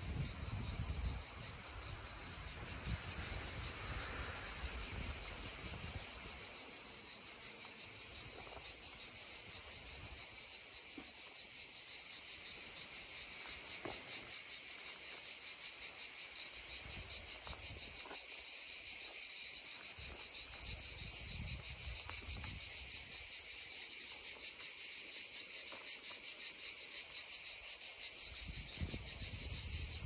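Cicadas droning in a steady high-pitched chorus over the faint rush of a babbling stream.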